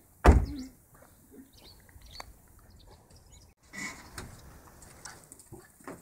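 A car door shutting with one loud thump about a third of a second in, followed by faint clicks and rustling.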